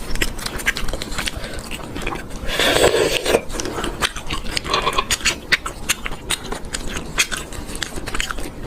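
Shrimp shell being cracked and peeled by hand, close to the microphone: a run of sharp crackles and clicks, with one longer, louder noise about two and a half seconds in.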